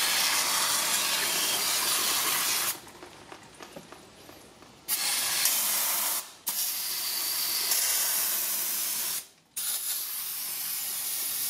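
Aerosol can of brake cleaner spraying with a loud, steady hiss in four long bursts, with a two-second pause about three seconds in and short breaks near six and nine seconds. The spray is flushing brake dust off a drum brake assembly.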